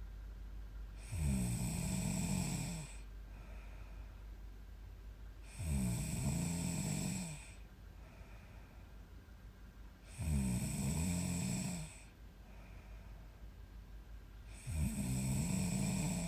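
A woman snoring in her sleep: four loud snores, one about every four and a half seconds, each lasting about a second and a half, with quiet breathing in between.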